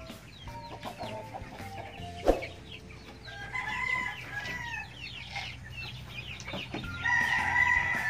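A flock of chickens clucking and calling with short, rapid notes, while a rooster crows near the end. A single sharp knock sounds about two seconds in.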